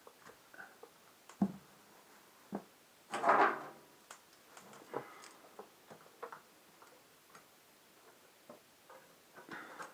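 Light, scattered clicks and knocks of hands threading a new oil filter onto a Ducati 848 engine, with a sharper knock about a second and a half in and a brief louder rasp about three seconds in.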